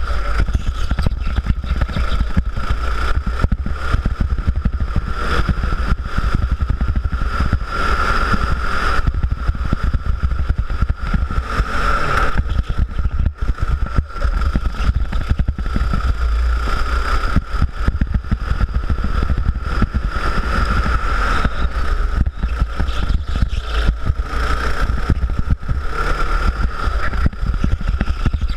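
Go-kart engine running at speed around the track, its note fairly steady with small swells, over a heavy low rumble.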